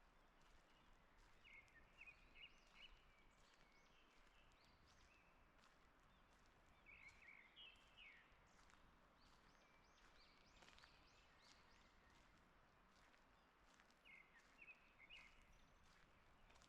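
Faint woodland birds singing, with short bursts of quick chirps coming three times, over soft footsteps on a forest path.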